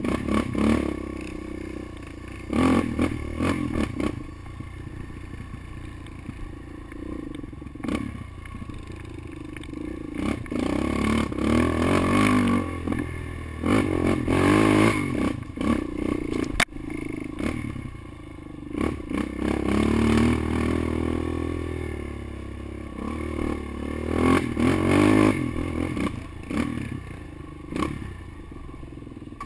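Suzuki quad bike's engine revving up and down over and over as the throttle opens and closes on a rutted dirt trail. Now and then the machine knocks over bumps, with one sharp knock about two-thirds of the way through.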